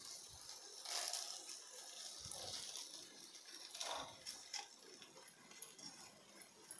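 Cooked rice tipped into a nonstick kadai of sautéed vegetables, landing with a soft patter about a second in and again about four seconds in, over a faint sizzle from the pan.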